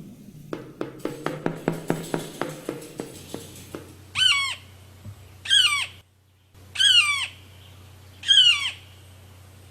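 A run of evenly spaced taps fading out over the first few seconds, then a bird giving four loud, harsh squawking calls about a second and a half apart.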